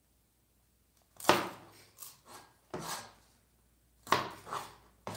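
Cleaver chopping on a plastic cutting board: several sharp, unevenly spaced chops, starting about a second in.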